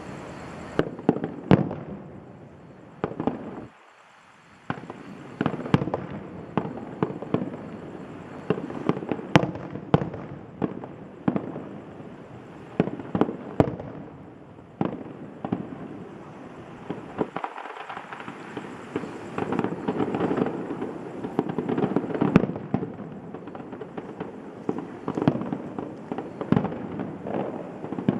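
Fireworks display: shells bursting in a rapid, irregular series of sharp bangs, with crackling between them that grows denser in the second half.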